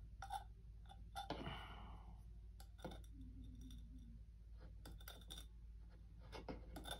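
Small knife blade scraping and clicking against the rim of a broken, glued-together mug as dried excess adhesive is shaved off: faint, scattered scrapes and ticks, with one longer scrape about a second and a half in.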